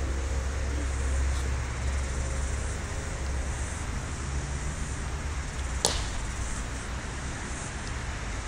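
A single sharp crack about six seconds in, a cricket bat striking the ball, with a fainter tick about a second and a half in. Both sit over a steady low background rumble.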